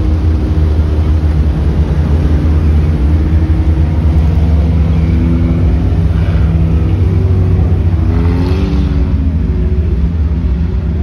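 Front-wheel-drive race cars running and revving around the track. The engine pitch rises and falls as cars come and go, and one passes louder about eight and a half seconds in.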